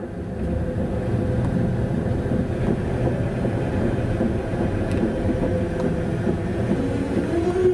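Tatra T6A5 tram running along its track: a steady low rumble of wheels on rail with a steady electric motor whine, and a second whine that starts to rise near the end.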